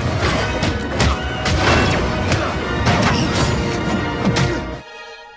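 Lightsaber sound-font effects: a quick run of sharp clash and impact hits mixed with music. About five seconds in the hits stop suddenly, leaving a quieter steady tone.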